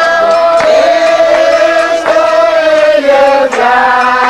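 Voices singing a slow, chant-like hymn, holding long notes that change pitch every second or so.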